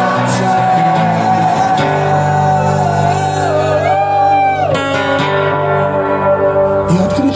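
Rock song with guitar and a sung vocal line.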